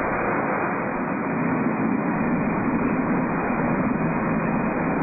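Hunter automatic mold handling line running: a steady mechanical noise, with a lower hum growing stronger about a second and a half in.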